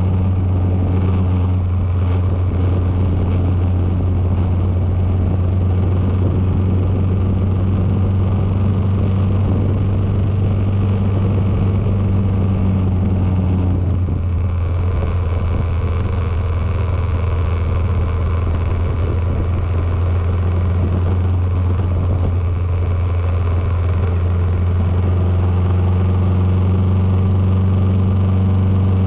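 Kawasaki KLR650's single-cylinder engine running steadily at road speed, with a rush of wind and road noise. The engine note eases for about ten seconds midway, then picks up again.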